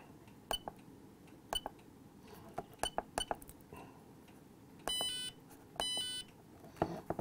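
Keypad buttons on a RigExpert AA-230 Zoom antenna analyzer clicking as keys are pressed: a run of short clicks, then two short electronic beeps from the analyzer about a second apart, then a couple more clicks near the end.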